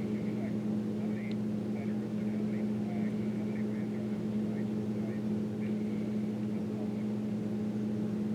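A steady, low engine-like hum, with short, faint high chirps scattered over it.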